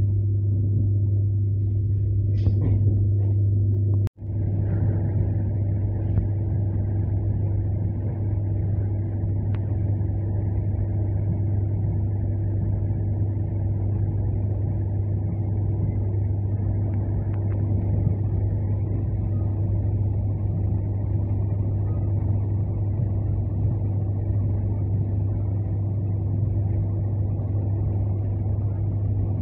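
Steady running rumble of an ER9M AC electric multiple unit heard from inside the carriage, with a strong, unchanging low hum throughout. The sound cuts out for a split second about four seconds in.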